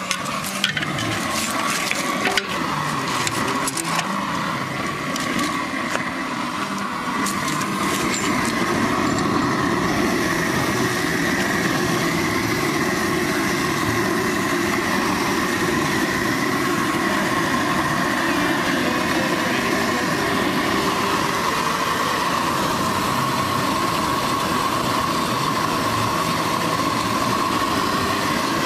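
Gas jet burner firing steadily under a cooking pot: a continuous rushing flame noise with a faint steady whistle, which grows louder about ten seconds in. A few short clicks and taps come in the first several seconds.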